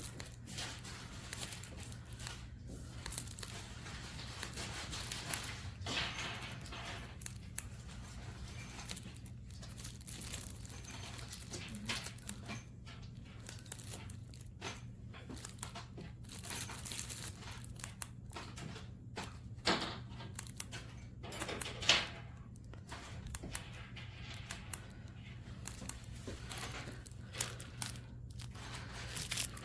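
Irregular rustling, crinkling and clicking handling noises, with sharper knocks about 20 and 22 seconds in, over a steady low hum.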